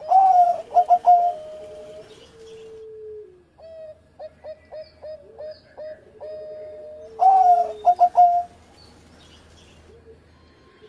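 Zebra dove (perkutut) singing its cooing song. Two loud phrases about seven seconds apart, the second near the end. Each opens on a high rising coo, breaks into a quick run of short clipped coos and ends in a long, lower held coo, with softer coos in between.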